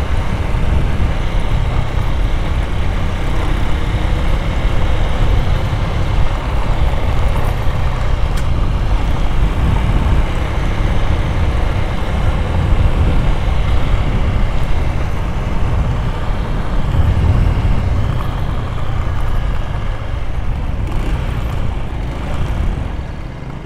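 Wind buffeting the microphone and road noise while riding a motorcycle in traffic: a steady, loud, deep rush that eases off somewhat near the end.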